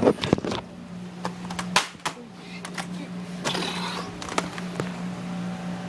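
A plastic DVD case and its paper insert being handled: a string of sharp clicks and taps, with a short rustle of paper about three and a half seconds in, over a steady low hum.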